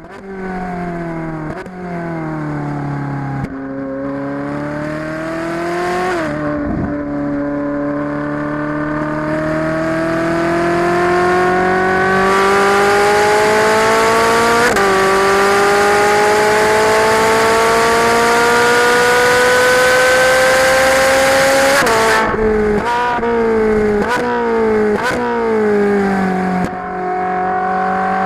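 Ferrari 458's 4.5-litre flat-plane V8 at full throttle on track, climbing in pitch through several quick upshifts and one long pull. About 22 seconds in it drops into a quick run of downshifts, each with a sharp blip of revs under braking, then pulls away again near the end.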